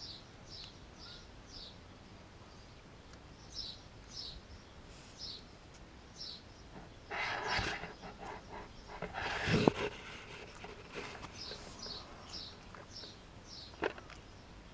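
Rustling and bumping as a Japanese Spitz puppy scrambles against a hand and arm close to the microphone, loudest in the middle. A bird chirps in quick runs of short, high, falling notes at the start and again near the end, and there is one sharp click near the end.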